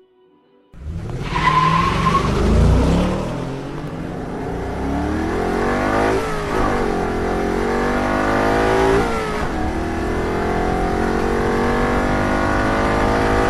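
Engine revving sound, like a race car, with pitch sweeping up and down several times. It cuts in abruptly about a second in and cuts off just as abruptly at the end.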